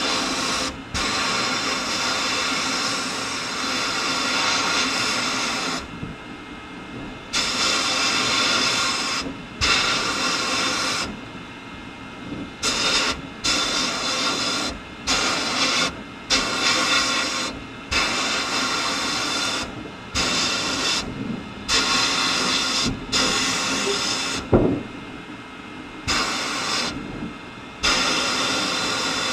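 Sandblasting cabinet blast gun firing compressed air and abrasive at a small metal part: a loud hiss that starts and stops abruptly, one long blast of about six seconds followed by a dozen or so shorter bursts.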